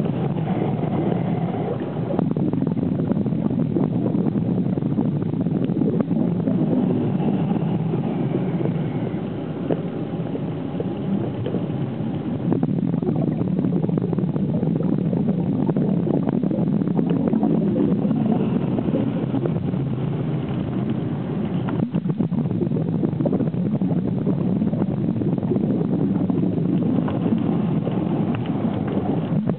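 Muffled, steady underwater rumble and hiss picked up by a submerged camera in its housing, with a faint high whine coming and going a few times.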